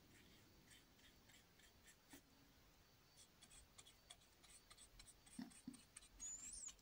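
Faint scratching of a paintbrush's bristles on canvas as acrylic paint is laid on in short, light strokes. The strokes come more often from about three seconds in.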